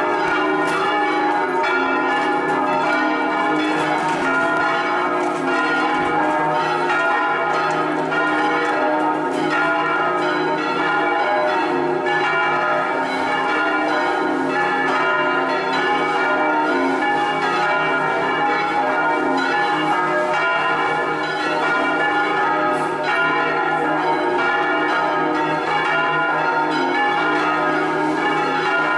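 Five bronze church bells of a six-bell peal tuned in E-flat, all but the fourth, swinging electrically in a full solemn peal. Their overlapping strokes blend into a dense, continuous clangour with no pause.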